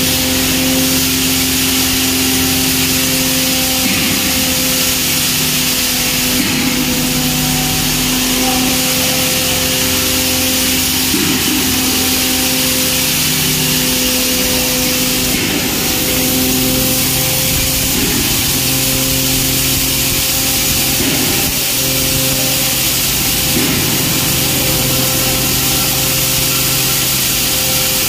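Hammer mill (pulverizer) running steadily, grinding maize for cattle feed: a constant hum under a loud even hiss.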